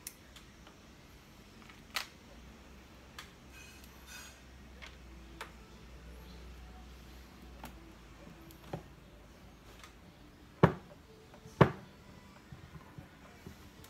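Handling sounds on a desk: scattered light clicks and a brief rustle a few seconds in, then two sharp knocks about a second apart near the end as a block of four prismatic LiFePO4 battery cells is picked up.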